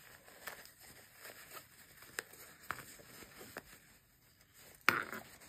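Faint rustling and small ticks of a quilted fabric pouch and its zipper hardware being handled as its corners are pushed out, with one sharper click near the end.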